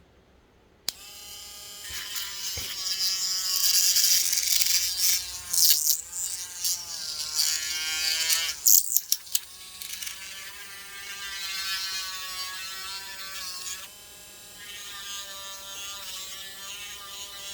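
Small handheld electric rotary tool running as it grinds out the hole in a plastic neck socket, starting about a second in. Its motor whine rises and falls in pitch as the bit loads up, with a grinding hiss that is loudest in the middle.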